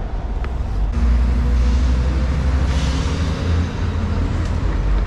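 A heavy road vehicle's engine running close by, a steady low rumble that grows louder about a second in, with a hiss that swells and fades in the middle.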